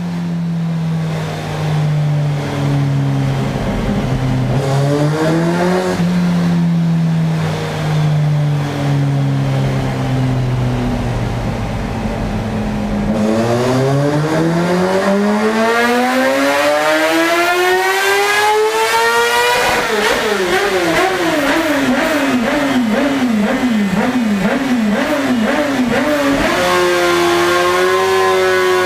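Kawasaki ZX-6R inline-four engine running on a dynamometer: in gear at fairly steady, slowly falling revs, then a full-throttle dyno pull with the revs climbing steadily for about six seconds. After the peak the revs fall with the pitch wavering up and down about twice a second, and settle to a steadier, higher note near the end.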